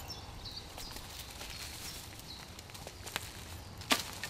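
Quiet woodland ambience with footsteps shuffling on dry leaf litter, and two sharp clicks near the end, the second the louder.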